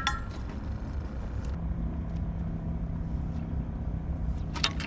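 Low steady rumble, with a steady engine hum setting in about a second and a half in.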